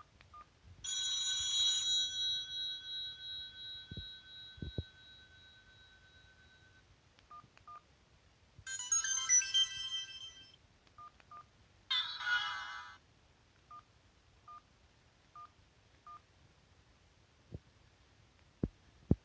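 Sony Ericsson W380i mobile phone playing short previews of its preloaded ringtones: a chime that rings out for several seconds, then two brief electronic melodies. Short paired beeps come between them, and a few soft clicks near the end.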